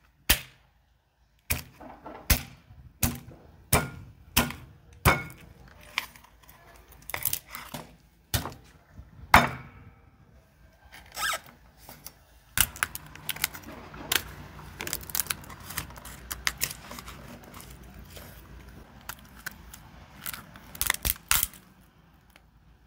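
Chef's knife splitting a spiny lobster on a wooden cutting board: separate sharp knocks and cracks as the blade goes through the shell and hits the board. From about halfway, a denser crackling and crunching of shell as it is cut and pried apart.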